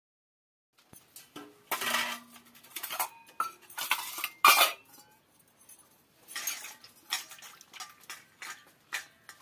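Stainless steel bowls clanking and scraping on a concrete floor as they are set down and moved by hand, in a string of irregular metallic knocks starting about a second in.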